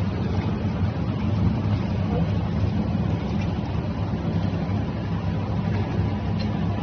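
Electric commercial meat grinder running steadily, a low, even motor hum with no change in pitch.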